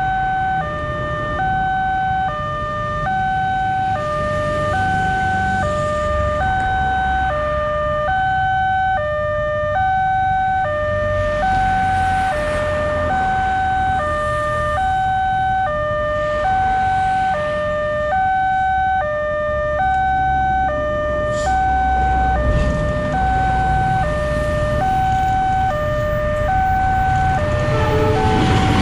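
Railway level-crossing alarm from the speaker on the crossing signal post, two electronic tones alternating about once a second while the barrier is down and the red lamp is lit, warning that a train is approaching. Near the end the noise of the approaching train swells under it.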